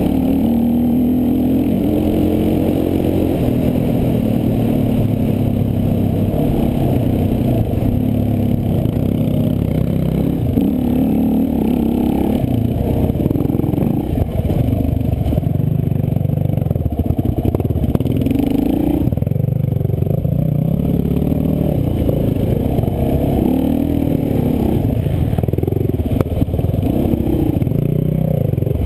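Sport quad engine heard close up from a camera mounted on the quad, running fairly steadily at first, then revving up and down repeatedly through the second half as it rides a rough dirt track.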